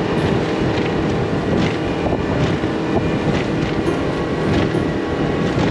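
Outboard motor running at speed on an aluminum boat, with steady wind noise on the microphone. Short knocks come about once a second.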